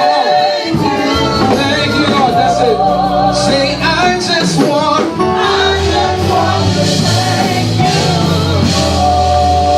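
Gospel praise music: a singer holding long notes with vibrato over a sustained bass accompaniment.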